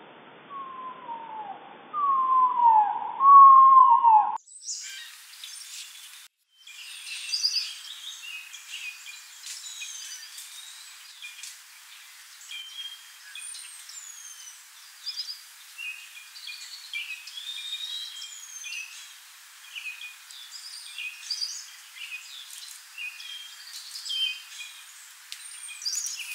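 Songbirds calling. For about the first four seconds there are a few loud slurred whistles. After an abrupt cut comes a busy mix of many short, high chirps and whistles from several birds.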